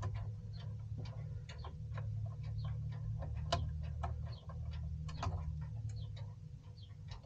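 Irregular small clicks and taps of a hand tool and wire at the screw terminals of a DC-DC charger as a wire is worked in and tightened, over a steady low hum.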